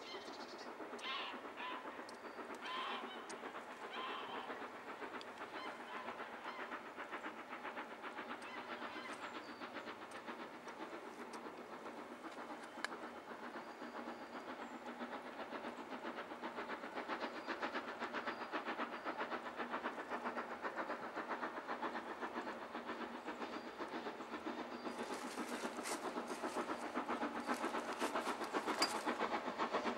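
Steam locomotive hauling a train of coaches, its rapid exhaust chuffs growing steadily louder as it approaches. There are a few short high sounds in the first four seconds.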